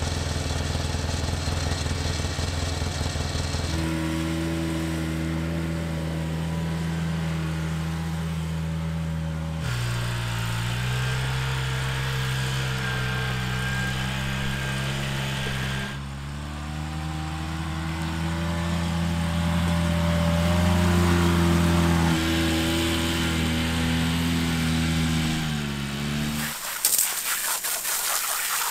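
Side-by-side utility vehicle engine running at a steady speed while hauling a log, its pitch stepping up and down between stretches. Near the end the engine drops away and a jet of water hisses against a log.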